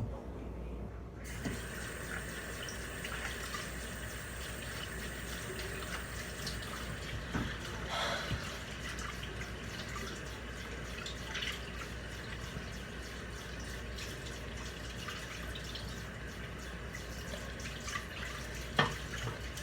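Water tap running into a sink, turned on about a second in, with a few brief knocks and splashes.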